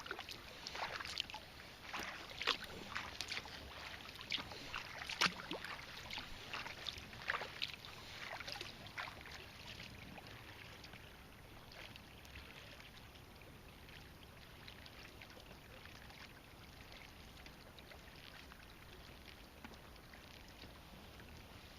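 Kayak paddles dipping and splashing in the water, with drips running off the blades. The splashes come at irregular intervals for about the first ten seconds, then fade to faint water sounds.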